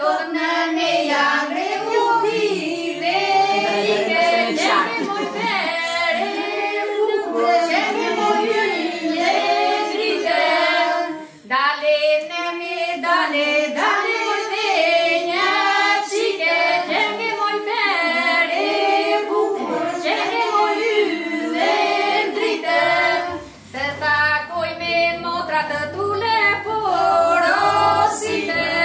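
Several female voices singing a song together, unaccompanied at first, with short breaks between phrases; about 23 seconds in, a low rhythmic bass comes in beneath the singing.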